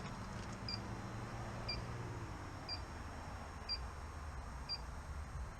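Gas detector beeping at its steady idle rate, one short high beep about every second. Under it runs a steady low rushing noise.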